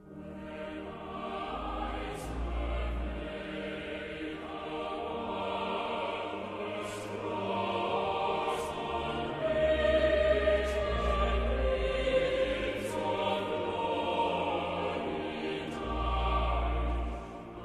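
Choir singing, with deep bass notes swelling in three times.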